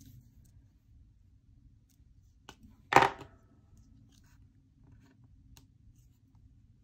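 Planner page and sticker handling: light scattered taps and paper rustle, with one brief, sharp, loud sound about three seconds in as the page is lifted and shifted.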